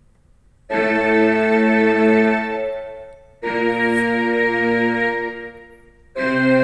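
Yamaha PSR-E263 portable keyboard playing three held chords, each starting abruptly and sustaining with a slight wobble before fading. The first comes about a second in, the second about three seconds later, and the third starts just before the end.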